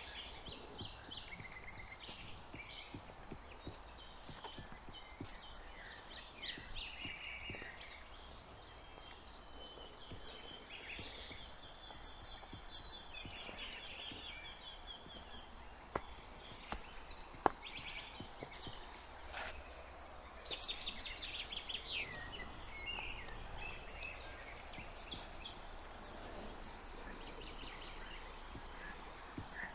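Songbirds chirping and trilling, many short high calls overlapping, with one dense rapid trill about two thirds of the way through, over a steady background rush. Two sharp clicks stand out around the middle.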